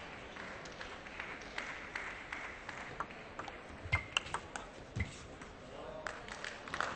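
Table tennis rally: the celluloid ball clicks sharply and irregularly off the bats and table, starting about three seconds in, over a steady arena crowd murmur. Two of the hits, about four and five seconds in, carry a low thud.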